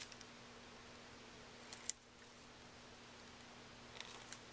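Near silence with a few faint ticks, the sharpest a little under two seconds in: fingers handling a vinyl lens skin and pressing it onto a camera lens barrel.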